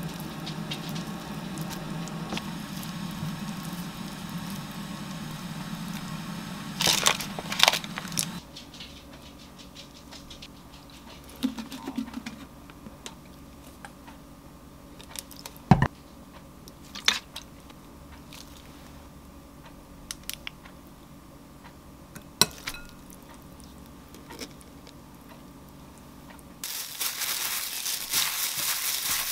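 Food prep in a glass mixing bowl: a steady low hum for the first eight seconds or so, then a few scattered light clicks and taps as seasonings are spooned in. Near the end comes a rustling, crinkling noise as a plastic-gloved hand tosses noodles, crab sticks and kimchi together in the bowl.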